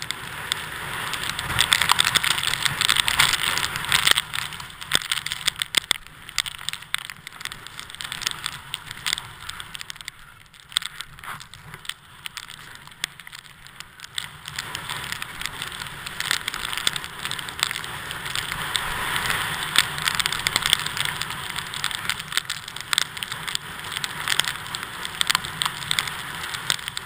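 Skis sliding and scraping over snow during a downhill run: a continuous hiss with fine crackling, easing off for a few seconds midway and picking up again.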